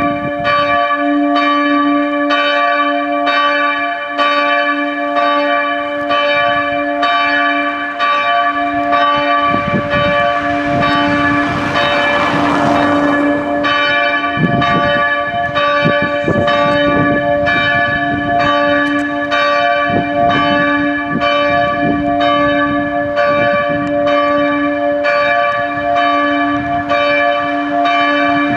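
Church bells ringing for the noon ringing: repeated strokes less than a second apart over a continuous ringing hum. A rushing noise swells and fades around the middle.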